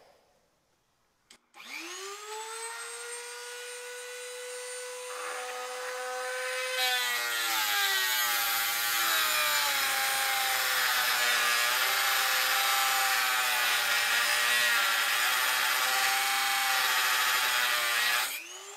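Dremel rotary tool with a metal cutoff wheel starting up about a second and a half in and whining steadily at free speed. About seven seconds in the wheel bites into the metal T-nut blank: the motor's pitch drops under load and a loud grinding hiss takes over, throwing sparks. Near the end the wheel comes off the work and the whine picks back up.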